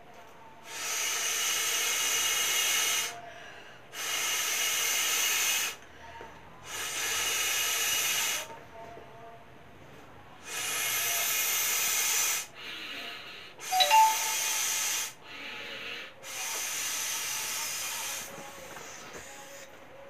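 Air blown by mouth into a plastic beach ball's valve to inflate it: six long breaths of rushing air, each about two seconds, with pauses for breath between them.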